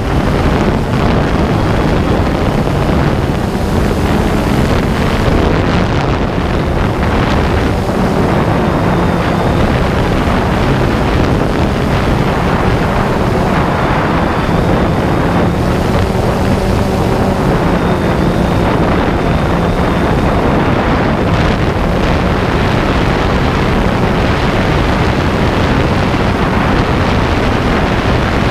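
Steady wind noise on the microphone of a DJI Phantom 2 drone's onboard camera in flight, with a faint hum from the drone's motors and propellers under it.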